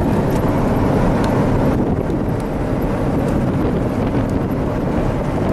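Steady road and engine noise inside the cabin of a moving vehicle.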